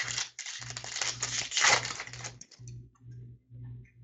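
Upper Deck hockey trading cards being handled and slid against one another, a dense papery rustle with light clicks that eases off after about two and a half seconds.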